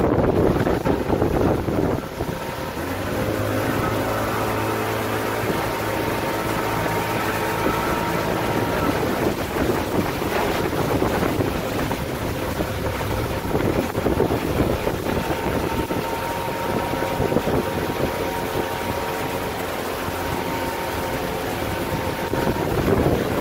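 Pontoon boat's outboard motor running at a steady speed under way, with wind on the microphone and water rushing past the hull; the wind is strongest in the first couple of seconds.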